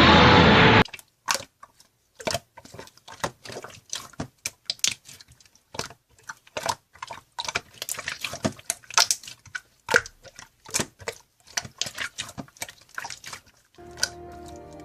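Background music cuts off, then an irregular run of small sharp clicks and taps, some close together and some spaced apart, until music starts again near the end.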